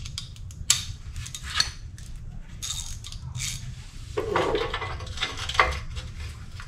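Hand tools clinking and grating on the exhaust of a VW bay-window bus as it is worked loose for engine removal: several sharp metallic clinks about a second apart, with a longer grating stretch about four seconds in.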